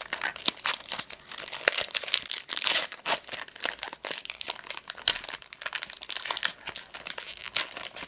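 Wrapper of a Topps Chrome baseball card pack being torn open and crinkled in the hands: a dense, irregular run of crackles and crisp rustles.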